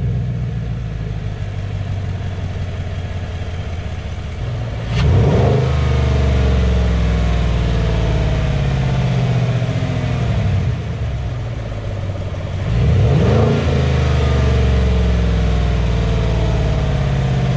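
2018 Chevrolet Silverado 1500's V8 idling, heard from the open engine bay on its stock intake, then revved sharply twice, about 5 s and 13 s in. Each time the revs wind down very slowly back toward idle over several seconds, a slow return that the owner puts down to the factory tune.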